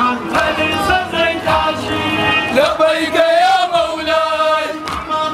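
Male voices singing a chant, with one long wavering note held for over a second past the middle.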